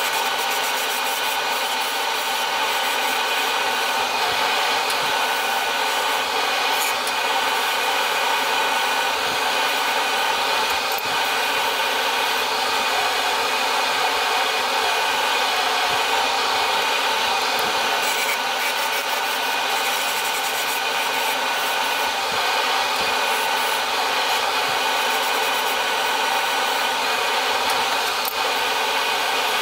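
Workshop dust extraction and a small Axminster woodturning lathe running steadily, with a turning tool cutting a small wooden wheel blank.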